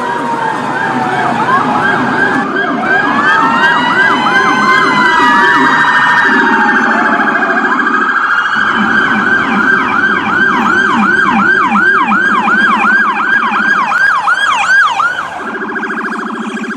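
Electronic siren sounding through loudspeakers, from a 200-watt siren amplifier (118K), with several tones layered. A slow rising-and-falling wail sweeps over a faster pattern about 2 to 6 seconds in. Then it settles into a rapid yelp of about three sweeps a second over a second, lower sweeping tone, and the yelp stops about fifteen seconds in, leaving the lower tone.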